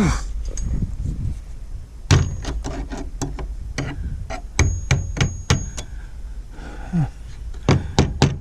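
A run of sharp knocks and taps on the chicken coop door's latch hardware, about three a second, some with a short metallic ring, as the latch is worked loose. A few more knocks come near the end.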